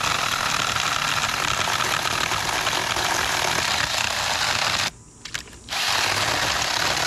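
Battery-powered 6-inch mini chainsaw cutting into hard old cedar, running steadily, then cutting out abruptly about five seconds in and starting again under a second later. The stop comes from the blade getting in a bind in the cut.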